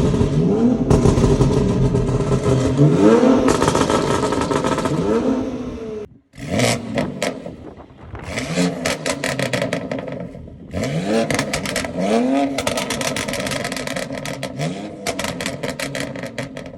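BMW X3 M's twin-turbo straight-six, on race downpipes with the OPF bypassed, blipped to a series of short revs. Each rev falls back into a rapid run of pops and crackles on the overrun, from custom burble tuning in Sport Plus. The sound breaks off briefly about six seconds in.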